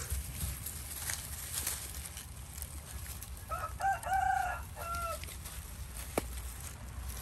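A rooster crowing once about halfway through: a call of about a second and a half in a few pitched parts.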